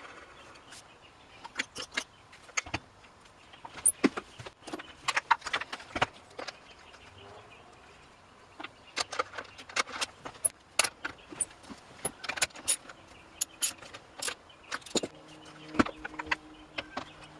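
Small metal chainsaw parts and hand tools clicking and clinking irregularly during reassembly, with a low steady hum coming in near the end.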